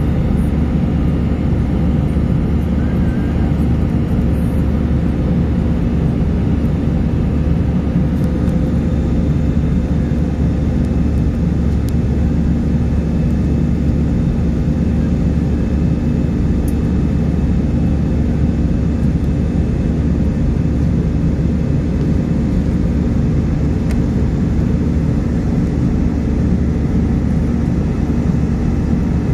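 Airliner engines and rushing air heard from inside the cabin during the climb after takeoff: a steady, low rumble.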